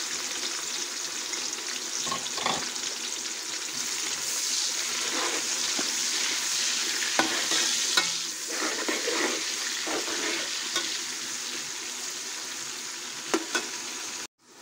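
Sliced onions sizzling in hot cooking oil in a metal pot, a steady frying hiss. A metal spoon stirring them clicks and knocks against the pot now and then.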